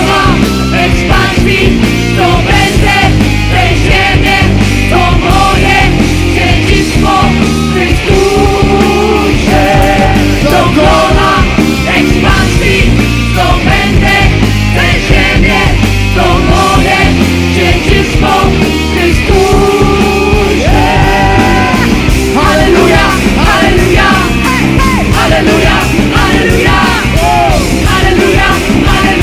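Loud live rock-style worship band music, with voices singing without clear words over the full band.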